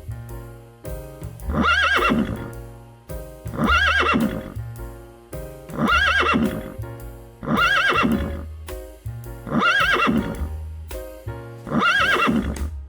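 Background music with a short whinny-like equine call repeated six times, evenly about every two seconds and identical each time, like a looped sample.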